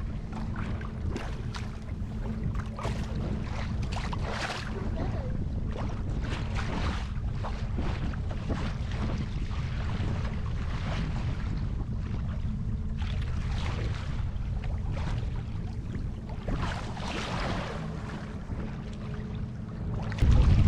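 Small rental boat under way: its motor hums steadily while water splashes against the hull and wind gusts on the microphone.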